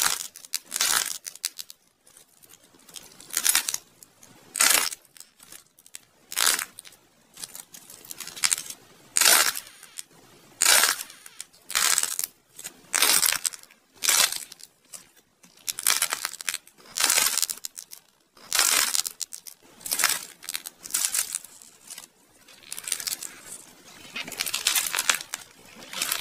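Clay imitation doughnuts being squeezed and torn apart by hand: crisp crunching and tearing of the clay in repeated bursts about a second apart.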